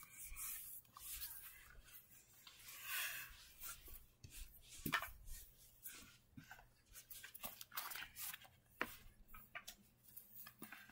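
Faint handling noises: soft rustling and scattered light taps and clicks as plush toys are moved and a silver laptop is lifted into place. The sharpest tap comes about five seconds in.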